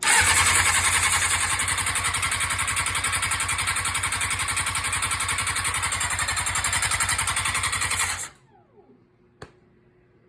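An engine being cranked by its electric starter with a rapid, even chugging pulse for about eight seconds without catching; the starter then stops, winds down, and a sharp click follows. It is a no-start that starter fluid has not cured, which the owner is chasing as an ignition fault after replacing the cam pulse sensor and stator.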